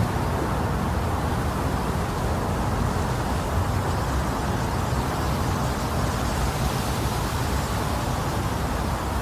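Steady white noise made to imitate the sound of the womb, for settling a baby to sleep: an even rushing hiss, strongest in the low range, with no beat or change.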